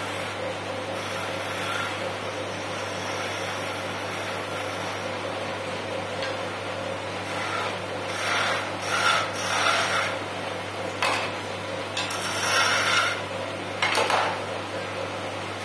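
Wood lathe running with a steady hum while a chisel cuts the spinning wooden chess piece: light, even scraping at first, then a few louder short cutting passes in the second half.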